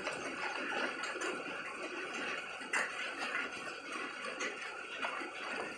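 Rain falling steadily in an even hiss, with scattered sharper ticks of drops striking hard surfaces, one louder than the rest near the middle.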